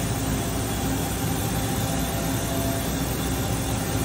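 Matsuura H.Plus-500 horizontal machining center running, a steady mechanical hum with a faint steady whine, as its B-axis rotary table turns the tombstone fixture on the pallet.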